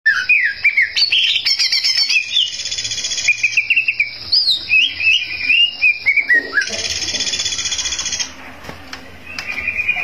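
Caged male green leafbird (cucak ijo) singing in full song: a fast, varied run of whistled notes and slurs, broken twice by long buzzing trills. A brief lull comes about eight seconds in before the song picks up again.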